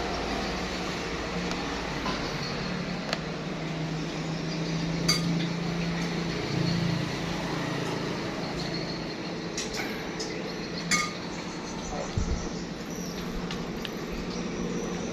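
A few light clinks of crockery and utensils, a handful of sharp ticks spread through, some ringing briefly, over a steady low background rumble.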